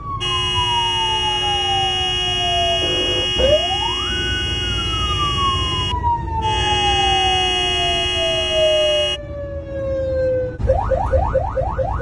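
Fire-truck mechanical siren winding down in a long falling wail. It is wound back up quickly about four seconds in, then coasts slowly down again. A steady chord of several tones sounds over it and breaks off around six and nine seconds; near the end a fast repeating rising yelp, about five sweeps a second, takes over.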